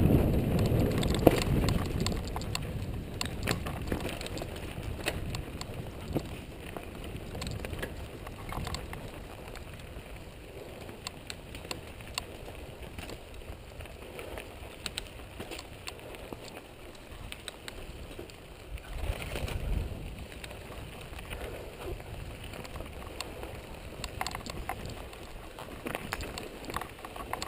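Downhill mountain bike rolling fast over a dry, rocky dirt trail: tyres crunching on dirt and stones, with many small clicks and rattles from the bike. Louder in the first couple of seconds, then steadier.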